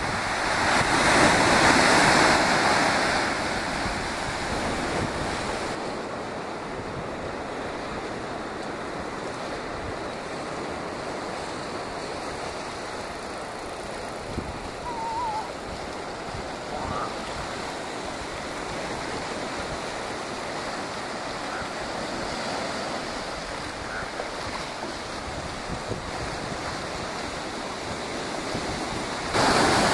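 Ocean surf washing against sea cliffs and rocks, with some wind on the microphone. It is loudest in the first few seconds, settles into a steadier, quieter wash, and rises again just before the end, with a few faint short chirps near the middle.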